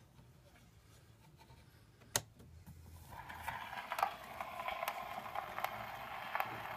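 A sharp click about two seconds in, then the hiss and crackle of a shellac disc record's surface noise playing through the horn of a c1902 Columbia disc Graphophone, with scattered ticks, getting louder: the needle running in the lead-in groove before the music starts.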